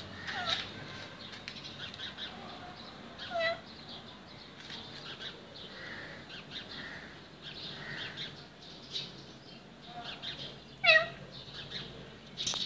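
Domestic cat meowing three times in short falling calls: about a second in, again a few seconds later, and loudest near the end.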